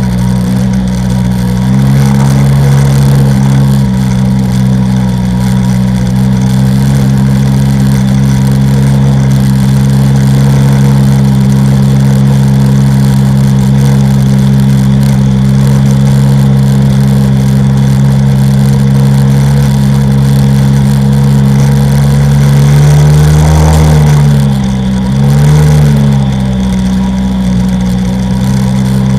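Sea-Doo XP personal watercraft's two-stroke engine running steadily at speed over a rush of water and wind. Its pitch dips and rises twice near the end as the throttle is eased and opened again.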